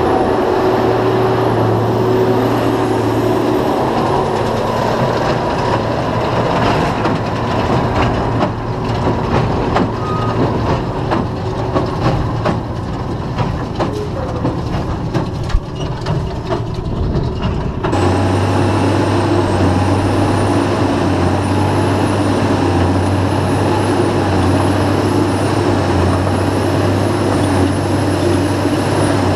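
Case IH Puma 180 tractor's diesel engine running steadily while it pulls a New Holland BB9070 large square baler in work. From about four seconds in the baler's mechanism clatters with irregular knocks as a bale is pushed out of the chute; from about eighteen seconds the steady engine drone returns, heard from the cab, with a faint high wavering whine.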